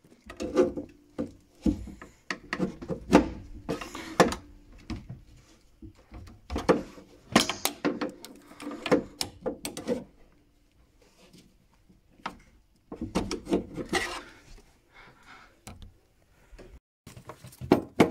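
Irregular knocks, clicks and scraping of plastic and metal parts as hands work the new sump of an Ideal Logic combi boiler into place against its clamping bracket. The sounds come in several bouts with short pauses between.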